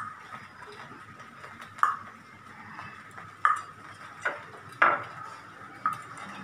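Water drops from drizzle falling onto a metal surface: a sharp ringing ping at the same pitch each time, about six in all at irregular intervals of roughly a second, over a faint steady hiss.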